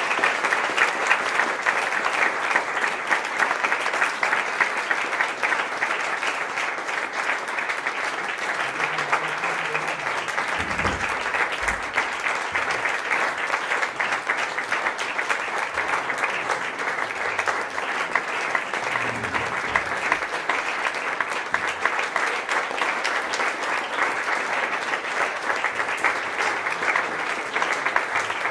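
Crowd applauding: dense, steady clapping from many hands that goes on without a break.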